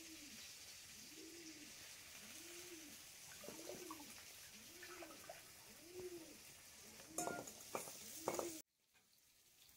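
A dove cooing, a low arched call repeated about once every second and a bit. Near the end come a few sharp clicks and knocks, then the sound cuts off abruptly.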